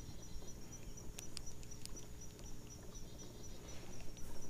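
Insects chirping in a steady, evenly pulsed high trill over a low steady hum, with a few faint clicks a little over a second in.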